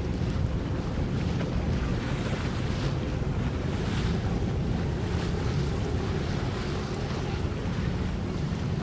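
Wind buffeting the microphone over open water, with a steady low rumble under a hiss of water.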